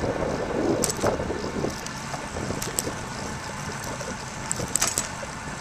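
Wind rushing over the microphone of a camcorder carried on a moving bicycle, with a few sharp clicks and rattles about a second in and near the end.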